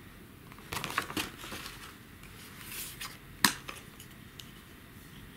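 Handling of an unboxed salt and pepper grinder and its paper packing: light rustling and small knocks, with one sharp click or tap about three and a half seconds in.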